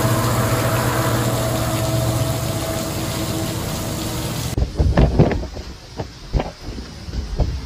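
Storm footage audio: a steady rushing noise with a low hum for the first four and a half seconds. It cuts to irregular low gusts buffeting the microphone.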